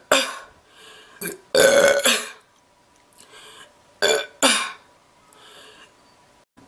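A person burping loudly while eating: a string of short burps, the longest and loudest about a second and a half in, with quieter eating mouth sounds between them.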